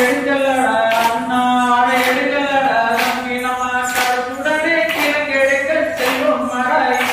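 Valli kummi folk song sung by a group of voices, with a sharp hand clap about once a second keeping the beat of the dance.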